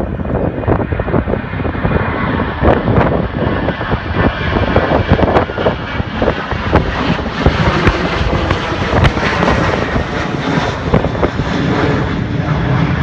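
Aircraft engine noise running loud, swelling toward the middle and easing off near the end, with wind buffeting the microphone.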